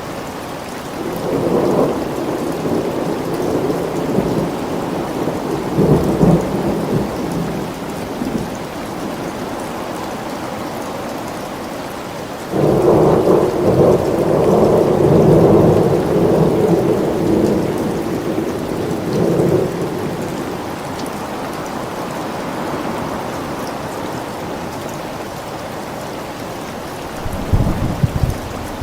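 Steady rain with thunder. A rumble swells from about a second in and fades by about eight seconds. About twelve seconds in comes a sudden, louder thunderclap that rolls on for some eight seconds, and another rumble starts near the end.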